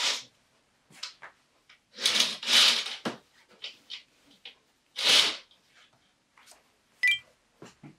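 A series of irregular handling noises, short rustles and clatters of objects being moved, loudest about two and five seconds in, with a sharp click near the end.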